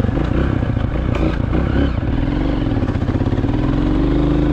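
Motorcycle engine running as it is ridden along a dirt track, its note rising near the end.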